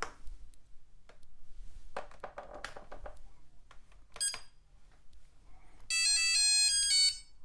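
Lexibook Junior children's computer: a few key presses and a short electronic beep, then, about six seconds in, a quick jingle of rapidly stepping beeps from its speaker, lasting about a second, as a game is chosen.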